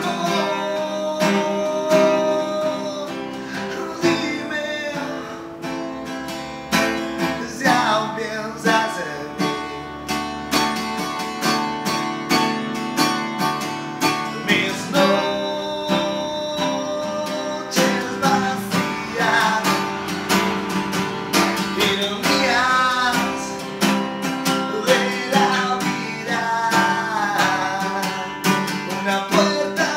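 A man singing while strumming an acoustic guitar in a steady rhythm. His voice comes in over the guitar in phrases.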